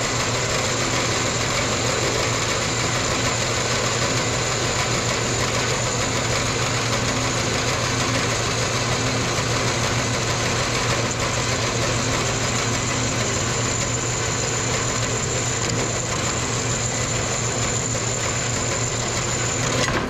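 Small horizontal metal-cutting bandsaw running steadily, its blade sawing through a short piece of round metal stock clamped in the vise. There is a steady high whine over the motor's low hum.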